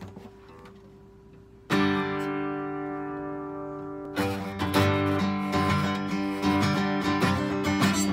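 Acoustic guitar: a chord struck a little under two seconds in and left to ring and fade, then a rhythmic strummed pattern starting about four seconds in.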